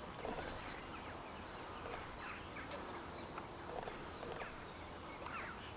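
Faint outdoor ambience with scattered distant bird chirps.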